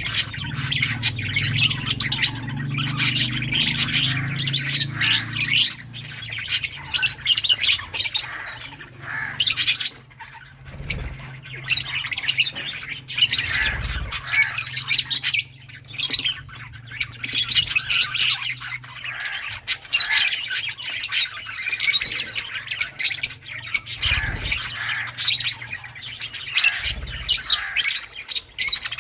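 Several lovebirds chirping and squawking in a dense, fast, high-pitched chatter that hardly pauses. A low steady hum sits under the first few seconds.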